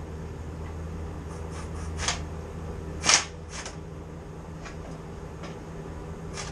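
Scattered short, sharp metallic clicks over a steady low hum, the loudest about two and three seconds in: a transmission jack being worked up into place under a transmission.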